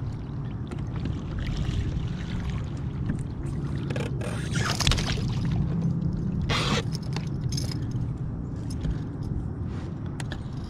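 Water sloshing around a plastic kayak, over a steady low rumble, with two short splashy bursts about four and a half and six and a half seconds in.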